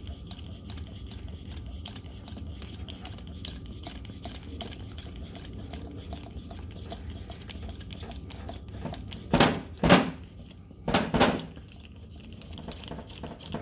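Air compressor inflator chuck being fitted to a scooter tyre's valve stem, with light metal clicks and handling. About nine to eleven seconds in come a few short, loud bursts of air as the inner tube is filled.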